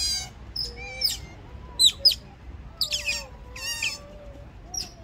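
A group of Asian small-clawed otters chirping and squeaking: a scattered run of short, sharp, high-pitched chirps and a few longer squeals, a couple each second.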